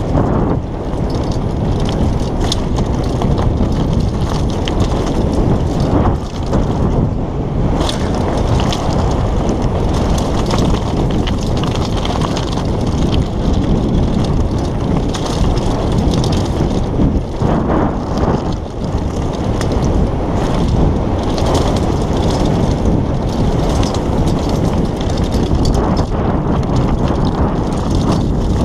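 Downhill mountain bike descending a loose, rocky trail: steady wind buffeting on a helmet camera's microphone, with tyres crunching over stones and the bike clattering and knocking over the bumps throughout.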